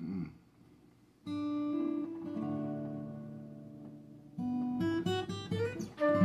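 Guitar strummed slowly. A chord about a second in is left ringing and fading for about three seconds. A second chord follows, then a few quicker strums and changing notes, and a louder chord right at the end.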